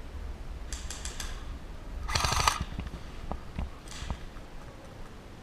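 Airsoft gun firing: a few quick shots about a second in, then a short rapid full-auto burst about two seconds in, the loudest moment, with another faint shot near four seconds.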